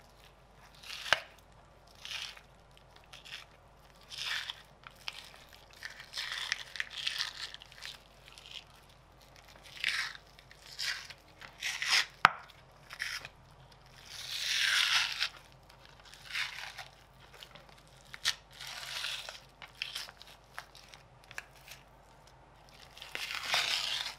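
Membrane being peeled and torn by hand from the bone side of a rack of raw pork ribs: irregular short tearing sounds, two of them longer and louder, with a couple of sharp clicks.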